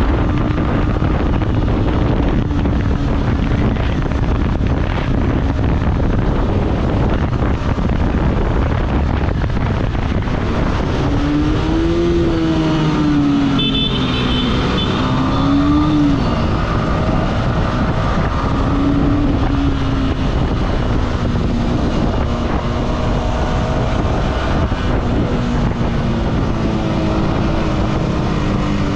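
Yamaha R15M's 155 cc single-cylinder engine, with its stock exhaust, pulling along at road speed, the revs climbing and dropping back several times. Steady wind and road noise run underneath, and a short high-pitched tone sounds about halfway through.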